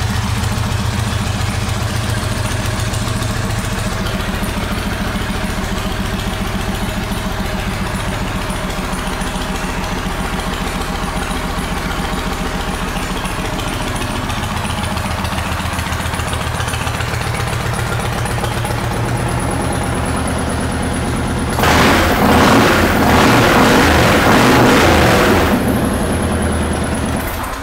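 2009 Yamaha Raider's 1,854 cc air-cooled V-twin idling steadily. A little after twenty seconds in it is revved for about four seconds, and it is switched off right at the end.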